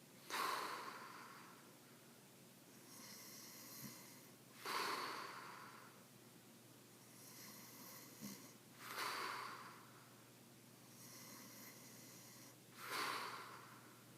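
A man snoring in his sleep: four loud snores about four seconds apart, each lasting about a second, with softer breathing between them.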